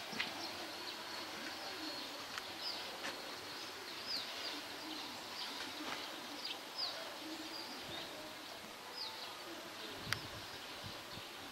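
Birds calling: short high chirps that fall in pitch, repeated every half second to a second, over low pigeon cooing. A single sharp click about ten seconds in.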